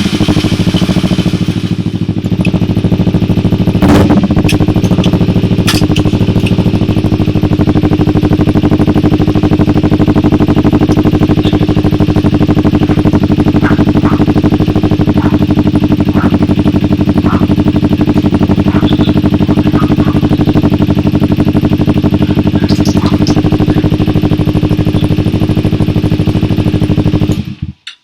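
Kawasaki Ninja 250R parallel-twin engine idling steadily through an Austin Racing full-system aftermarket exhaust, settling from higher revs in the first couple of seconds. The sound stops abruptly near the end.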